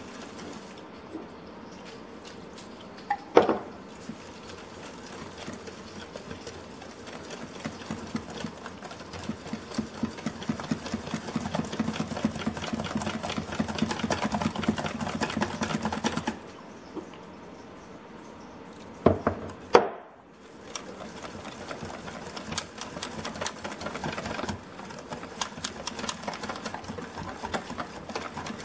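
Wire whisk beating pancake batter in a stainless steel mixing bowl: fast, steady clicking of the wires against the metal. A few louder knocks from the whisk striking the bowl come once early on and twice about two-thirds of the way through.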